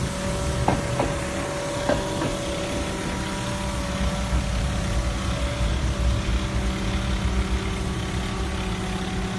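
Street-washing truck's engine running steadily: a low rumble with a constant hum, and a few light clicks in the first two seconds.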